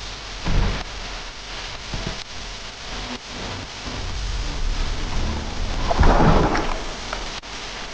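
Water rushing and sloshing against a camera mounted on a speargun as it moves underwater and breaks the surface, with a louder surge of splashing and bubbling about six seconds in.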